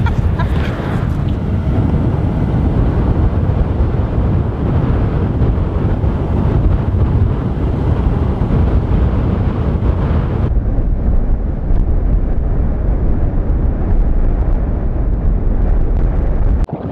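Wind buffeting the microphone of a moving car, a steady deep rumble mixed with road noise. About ten seconds in, the higher hiss drops away and the low rumble carries on.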